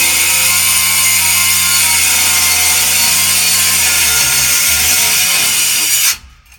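Battery-powered grinder with a Bad Dog Tools HD2 46-grit diamond wheel cutting through solid wood: a loud, steady grinding whine. The motor's pitch sags about four seconds in, and the sound cuts off suddenly near the end.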